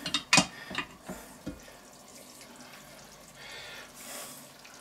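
Metal lid lifter clinking against the cast-iron lid of a Petromax FT4.5 Dutch oven, a few sharp clinks in the first second and a half. Near the end the lid comes off, and the hot stew inside is heard faintly hissing and bubbling.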